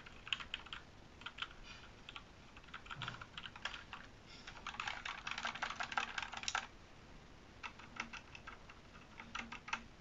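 Soft, light taps across the keys of a HIWINGS HI200 60% blue-switch mechanical keyboard, giving faint clicks of the keycaps in quick flurries, then fewer separate taps near the end, with the spacebar among them. It is a test of how loose the keys are, and the light touches are pretty quiet.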